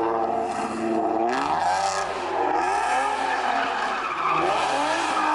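A car drifting: its engine revving up and down over and over while the tyres squeal and skid.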